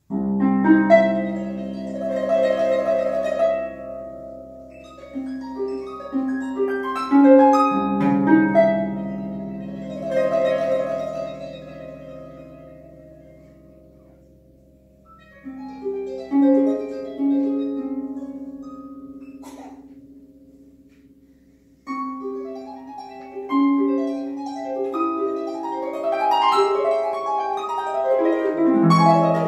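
Concert pedal harp played solo: plucked notes and chords ringing over low bass notes, beginning suddenly out of silence. The phrases fade almost to nothing twice, about halfway through and again shortly before the playing picks up near the end.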